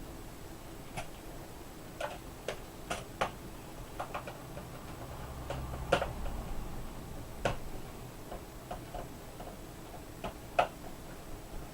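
Irregular sharp plastic clicks and taps as the laptop's bottom access covers are fitted back on, with a dull handling rumble around the middle.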